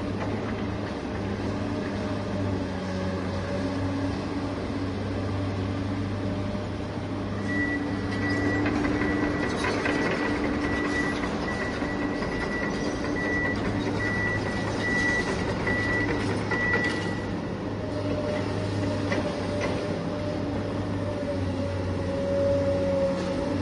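Radio-controlled construction machines' electric motors and hydraulics running with a steady hum, joined by a high repeated beeping from about eight to seventeen seconds in.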